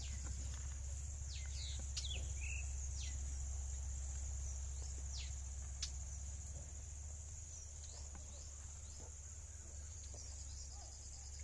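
Steady high-pitched insect drone with a handful of short, downward-sliding bird calls scattered through the first two-thirds, over a low steady rumble.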